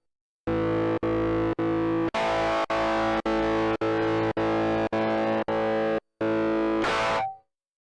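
Overdriven electric guitar (Fender Stratocaster) holding a chord that a latching tremolo/kill-switch pedal chops hard on and off, about two pulses a second, with silence between pulses. Near the end a brief noisy scrape, then the sound cuts off.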